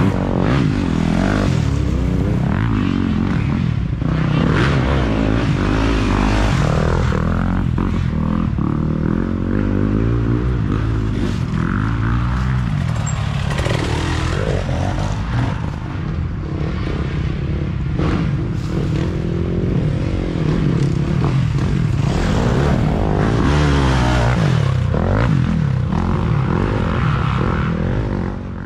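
Dirt bike engines running loud, repeatedly revving up and dropping back as several bikes ride past close by on a muddy trail.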